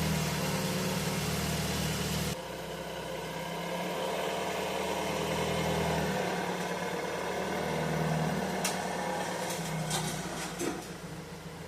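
Ford Escape 2.5L four-cylinder engine running just after starting. The level steps down about two seconds in as it settles to a steady idle.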